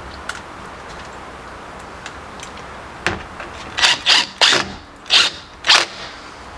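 A screw being driven into a wooden door jamb in about six short rasping bursts in the second half, the threads grinding as they bite into the wood.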